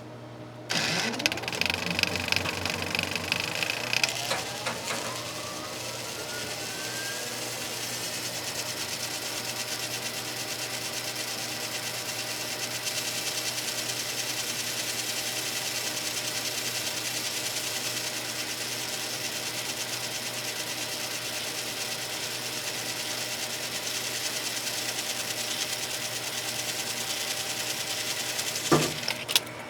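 Film projector starting up. A steady hum runs first, then about a second in the mechanism clatters on and a whine rises in pitch over several seconds. It settles into a steady, even running clatter, and near the end it stops with a clunk.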